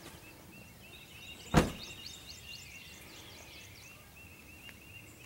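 Birds singing, a run of short, high, falling notes repeated over and over, with one sharp knock about one and a half seconds in.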